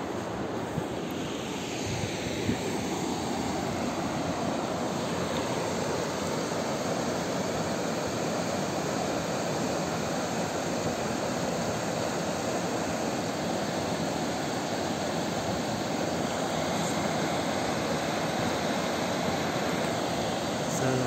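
Steady rushing of a shallow mountain river running over stones and small rapids, a continuous hiss that grows a little louder near the end.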